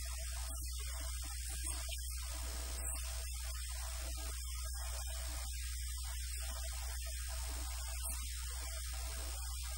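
Steady low electrical mains hum with faint hiss.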